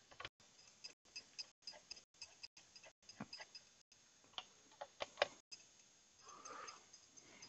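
Faint small metal clicks and ticks of a hand screwdriver turning screws back into a Dell Wyse mini desktop's processor heat sink and chassis, a few irregular clicks a second, the sharpest about five seconds in. A brief softer scraping noise follows near the end.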